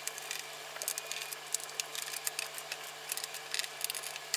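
Small screwdriver backing out the little screws that hold a synthesizer's main circuit board, with irregular light clicks and scrapes of metal tip on screw heads and handling of the board.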